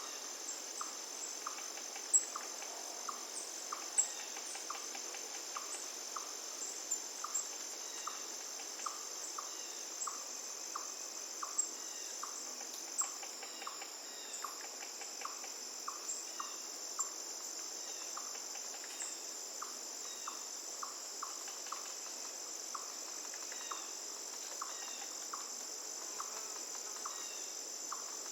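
Steady high-pitched insect trill over flowing river water, with a soft regular tick about three times every two seconds. Short faint chirps come in from about a third of the way through.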